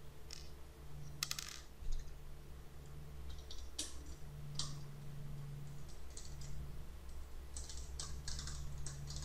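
Scattered light clicks and ticks of plastic and metal parts as the single screw holding the Dell Latitude D630's cooling fan is taken out and the laptop's bottom chassis is handled, over a low steady hum.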